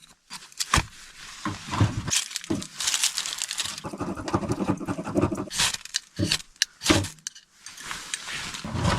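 Irregular clattering and clinking with sharp knocks and rustling, as objects are handled close by.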